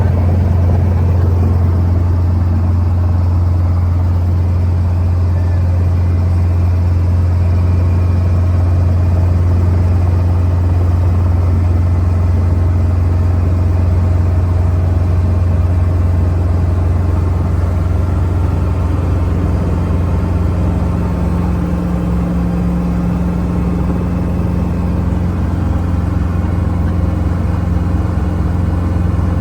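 Helicopters running, a loud steady low drone; a second, higher hum joins about two-thirds of the way in.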